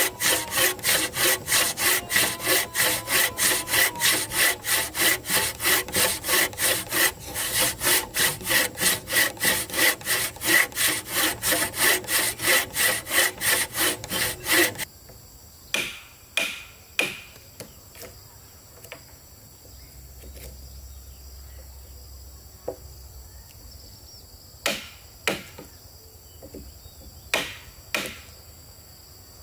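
A saw cutting through wood in quick, even back-and-forth strokes, about three a second. The strokes stop abruptly about halfway through. Then come a few scattered knocks over a faint steady high hum.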